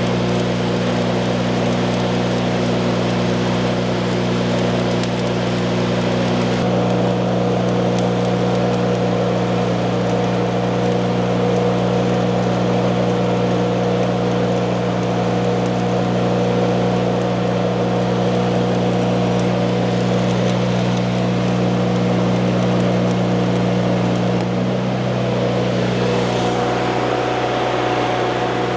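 Stick welding: the electrode's arc crackles and sizzles steadily over the welding machine's steady hum.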